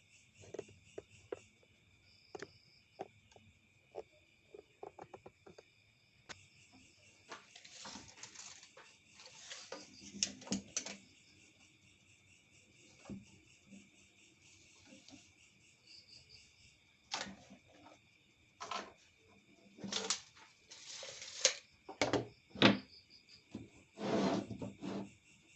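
Crickets chirping steadily in the background, with scattered knocks, clatters and a scrape of objects being handled.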